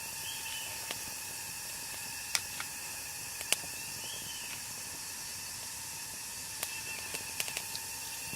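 Bird eggs sizzling on a hot stone, a steady hiss with sharp pops and crackles now and then, several of them close together near the end.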